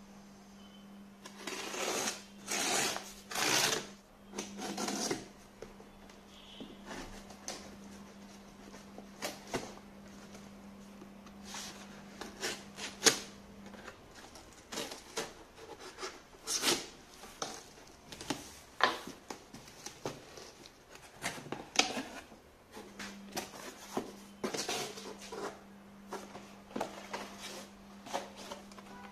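Cardboard shipping box being opened by hand with a cutter: longer scraping strokes a couple of seconds in as the tape is slit, then a string of short scrapes, taps and rustles as the flaps are pulled open. A steady low hum sits underneath, dropping out midway and coming back.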